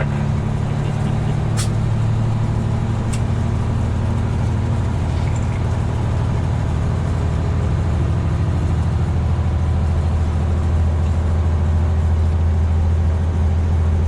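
Semi-truck's diesel engine droning steadily, heard from inside the cab while driving, with two sharp clicks a second and a half apart early on; about nine seconds in the drone settles lower in pitch.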